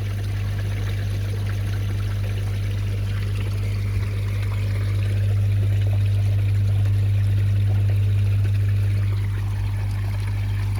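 Water trickling and pouring into a koi fry pool, as from a filter return, over a steady low electrical hum. The hum swells slightly in the middle.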